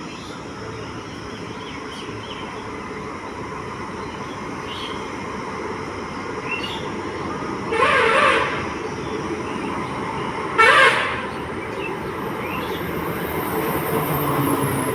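WAP-7 electric locomotive sounding its horn twice, a longer blast about eight seconds in and a shorter one about three seconds later. Beneath the blasts is the steady running noise of a train, which grows louder toward the end.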